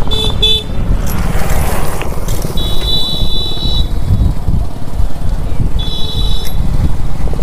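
Wind buffets the microphone of a handlebar-mounted camera on a moving bicycle, with road rumble underneath. Vehicle horns beep three times: a quick double beep at the start, a steady honk of about a second roughly three seconds in, and a shorter one near the end.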